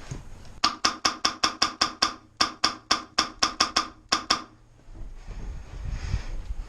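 Airsoft gun firing a rapid string of sharp shots, about six a second, in three runs with short pauses between them.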